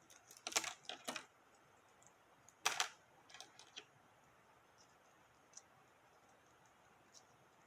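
Small plastic Barrel of Monkeys pieces clicking and clacking as they are handled and hooked together. There are a few light clicks in the first second, a sharper clack a little before three seconds, then a few faint ticks.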